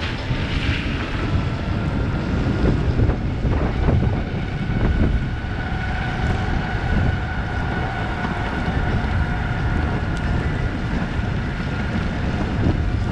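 Wind buffeting the microphone and tyres hissing on a wet road as an electric chopper scooter rides along in the rain, with a thin steady whine above the rush of wind.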